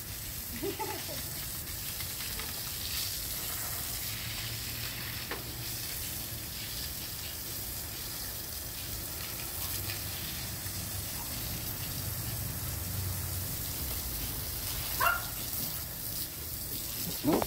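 Water spraying steadily from a garden hose onto a concrete patio, an even hiss.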